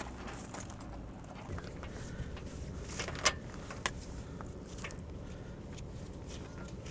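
Metal clinks and jingles from the fittings of a horse's lead rope as it is fastened to the side of a horse-drawn caravan, with a few sharp clicks, the loudest about three seconds in.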